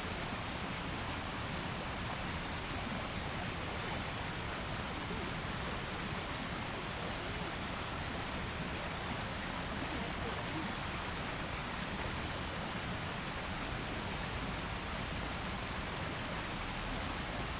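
A steady, even hiss of background noise that does not change, with no distinct sounds standing out.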